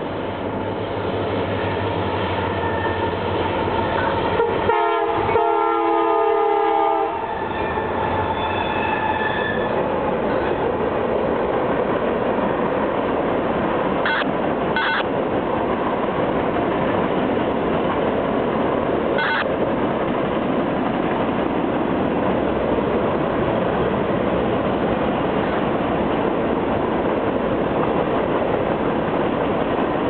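CSX freight locomotive's air horn sounding a long blast for a crossing, loudest about five seconds in and ending around ten seconds. After it comes the steady rolling noise of the long mixed freight passing, with a few sharp clicks near the middle.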